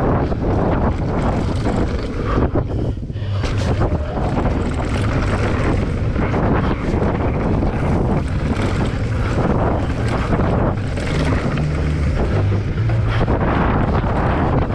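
Wind rushing over the camera microphone as a mountain bike descends a dirt downhill trail at speed, with the rumble of the tyres and the bike rattling over bumps.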